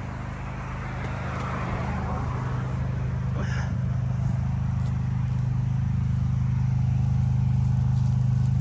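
Pressure washer running steadily with a low, even engine hum under the hiss of its water jet, growing gradually louder.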